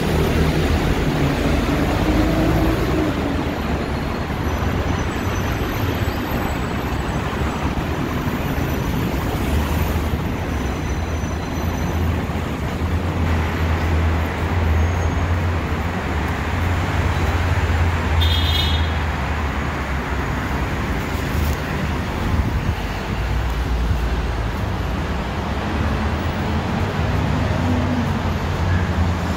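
Steady city traffic noise with a deep low rumble.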